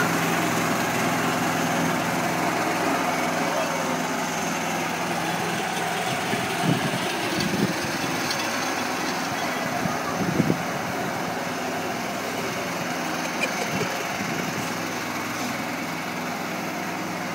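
Ride-on lawnmower's small engine running steadily as it drives along towing a garden cart, getting gradually quieter as it moves away.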